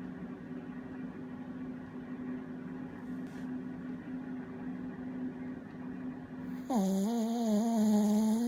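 A sleeping dog lets out a long, slightly wavering whine near the end, over a steady low hum.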